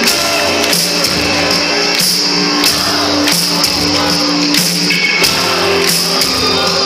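Live band playing a rock song through a concert PA: electric guitars over bass and a drum kit keeping a steady beat.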